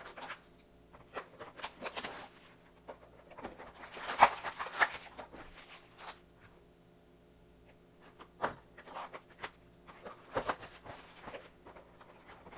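Foil booster packs and cardboard mini boxes being handled: irregular rustling, light taps and clicks, with a longer rustle about four seconds in.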